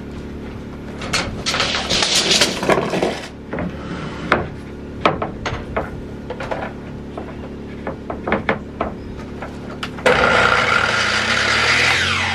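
A wooden board being slid and shifted into place on a miter saw, a run of clicks and knocks. About ten seconds in, the electric miter saw's motor starts with a sudden loud whine and keeps running.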